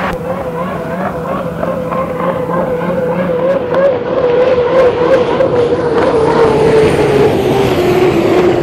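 Unlimited hydroplane's Lycoming T55 turbine engine running at speed: a steady whine over the rush of wind and water, growing louder about halfway through and dropping slightly in pitch near the end.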